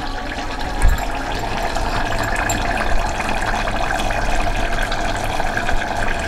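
Thick mutton curry bubbling steadily in an open pressure-cooker pot as it simmers down and thickens, with a brief knock about a second in.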